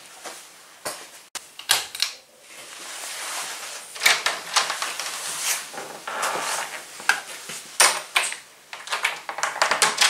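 Rustling and movement noise with a run of sharp knocks and clicks, among them a wall light switch being flicked off.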